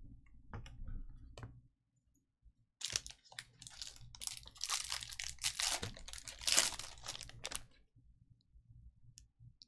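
Foil wrapper of a Topps Chrome jumbo trading-card pack crinkling and tearing open, starting about three seconds in and lasting about five seconds. A few light clicks of cards being handled come before it.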